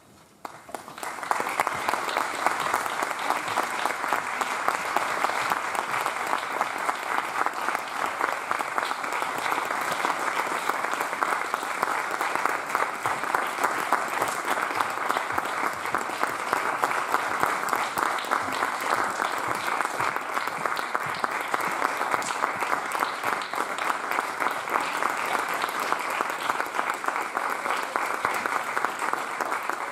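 Audience applauding: dense, steady clapping that swells in about a second in after near quiet and holds evenly throughout.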